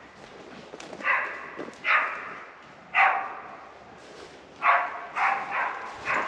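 Moose-tracking dog barking at a lame moose it is following, short single barks about a second apart, then a quicker run of barks near the end.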